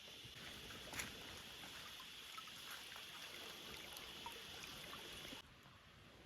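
Rainforest background: a steady high hiss with scattered light cracks and rustles, and a sharper snap about a second in. The hiss drops away suddenly near the end.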